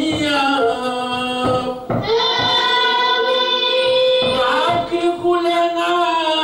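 Religious chanting of a Comorian mawlid: a voice singing long, held notes into a microphone, gliding slowly from one pitch to the next.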